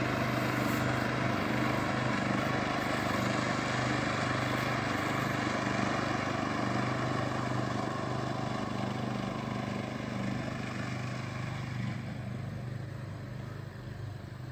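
Briggs & Stratton engine of a Craftsman riding lawnmower running steadily at speed, then slowly fading after about eleven seconds as the mower moves away.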